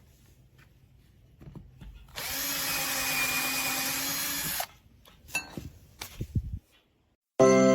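Power drill running steadily for about two and a half seconds, driving a self-centering VIX drill bit, with scattered knocks and clicks around it. Music starts near the end.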